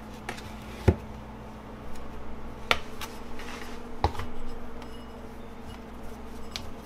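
A few sharp knocks of bowls and a metal cake pan handled on a stone countertop, the loudest about a second in, with the soft rustle of floury hands shaping biscuit dough. A steady low hum sits underneath.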